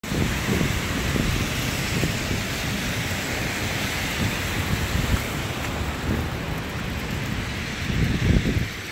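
Wind gusting on a phone's microphone, irregular low rumbles over a steady street hiss in falling snow, the strongest gust near the end.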